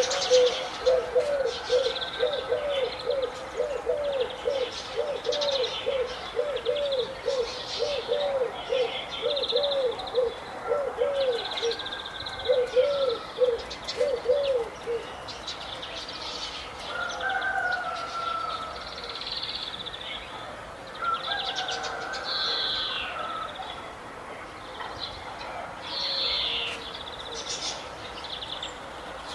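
Several birds calling and singing together, with many short high chirps throughout. For the first half, one bird repeats a low, arched note about three times every two seconds.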